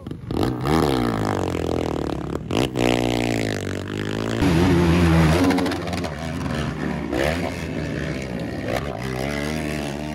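Several race ATVs revving hard as they plough through a muddy water crossing one after another, their engines rising and falling in pitch as the riders work the throttle, loudest about halfway through.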